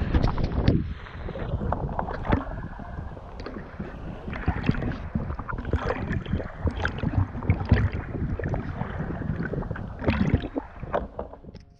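Sea kayak paddle strokes splashing and dripping in the water, irregular splashes over a low wind rumble on the microphone.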